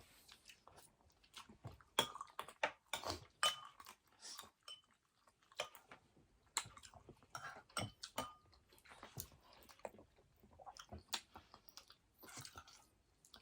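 Eating sounds: chewing and mouth noises with scattered short clicks and light taps, as food is eaten close to the microphone.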